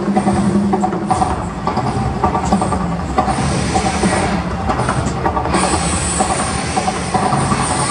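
Mirage volcano eruption show: a loud, steady, rumbling wash of the gas fire jets and water fountains, mixed with the show's amplified soundtrack holding sustained tones.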